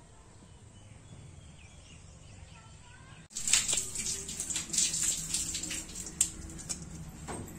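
Faint bird chirps for about three seconds. Then wood burning in a clay stove crackles with sharp clicks and pops, and there are knocks as an iron kadai is set on the stove.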